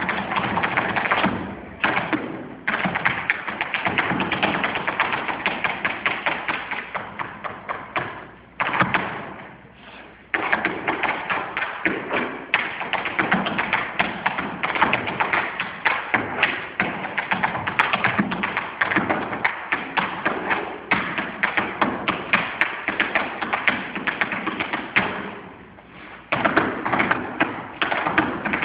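Tap shoes striking the stage floor in fast, dense rhythms, with no music, broken by a few brief pauses, the longest about two seconds near a third of the way in.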